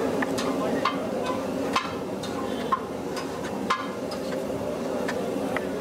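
Knife chopping goat offal on a wooden chopping board: a string of irregular sharp knocks, roughly one every half second to a second, over a steady background din.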